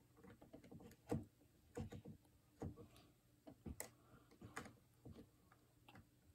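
Plastic Lego pieces being handled and pressed together: faint, scattered small clicks and taps at irregular intervals, the sharpest about a second in.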